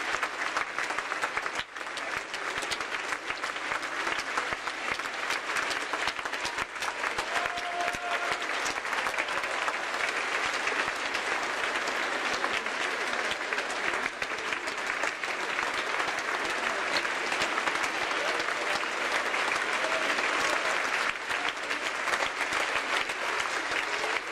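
Steady applause from a large crowd, many hands clapping in a dense, even clatter.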